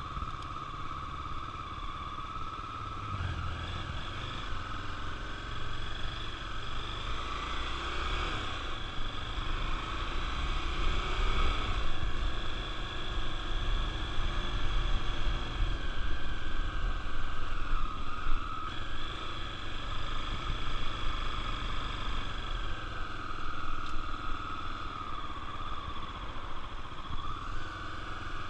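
Honda Tornado 250's single-cylinder engine running under way, a steady motorcycle drone with a low rumble beneath. Its pitch rises and falls a little near the end.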